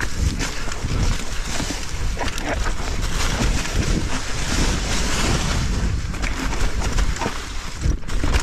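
Propain Tyee mountain bike descending a steep leaf-covered trail at speed: tyres rolling through dry leaves and over rocks and roots, with frequent knocks from the bike and steady wind rush on the microphone.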